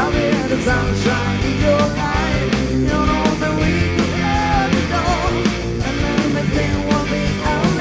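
Live rock band playing: electric guitars, bass and drums, with a steady drum beat.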